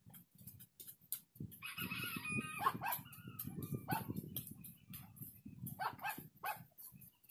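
A rooster crows once, about a second and a half in, followed by a few short animal calls. Under them runs a low, irregular rustling of weeds being pulled by hand.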